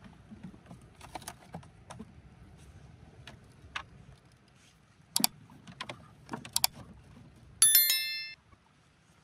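Scattered light knocks and clicks, then about three-quarters of the way in a single loud metallic ring that dies away in under a second.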